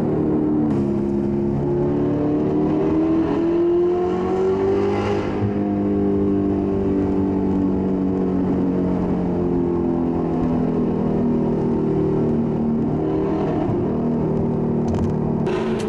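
Audi R8's 4.2-litre V8 breathing through an Armytrix titanium valvetronic exhaust, heard from inside the cabin while driving through a road tunnel. The engine note climbs in pitch for a few seconds as the car accelerates, then holds a steady cruising drone.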